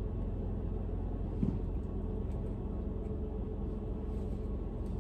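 Steady low hum of a 2011 Toyota Camry idling, heard from inside the cabin, with a brief faint handling sound about a second and a half in.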